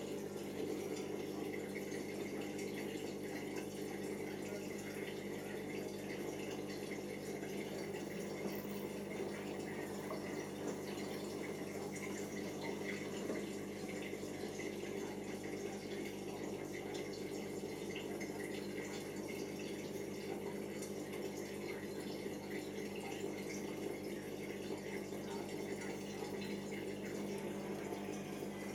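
Siemens iQ front-loading washing machine in its 400 rpm intermediate spin, a steady hum of the spinning drum and drain pump with water running out.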